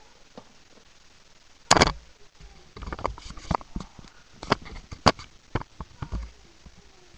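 Handling noise from a webcam being picked up and moved: a loud bump a little under two seconds in, then a run of irregular sharp knocks and rustles.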